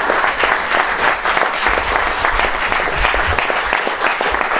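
Cabaret audience applauding: dense, even clapping at a steady level.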